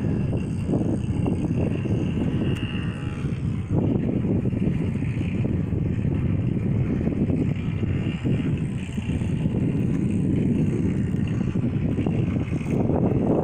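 Wind buffeting the microphone over open water, a dense fluctuating low rumble, with a faint steady high whine above it that cuts off near the end.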